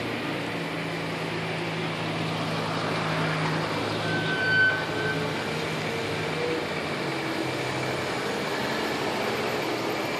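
CAT excavator's diesel engine running steadily at the demolition work, with a brief high squeal about four and a half seconds in.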